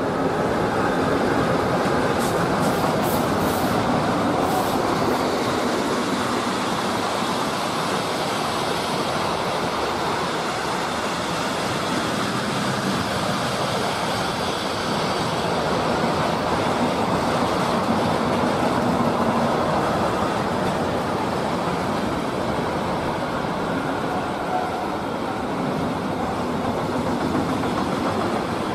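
Long intermodal freight train of container and swap-body wagons rolling past, a steady rumble and clatter of wagon wheels on the rails.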